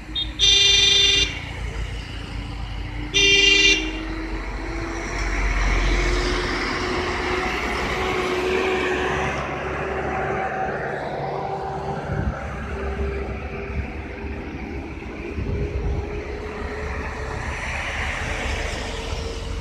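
Vehicle horn sounded twice, with loud blasts about a second in and at about three seconds. Then a vehicle engine drones steadily, rising slowly in pitch as a vehicle approaches the hairpin bend.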